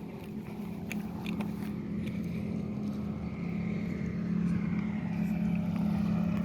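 An engine running steadily with a low hum, slowly growing louder as it comes closer.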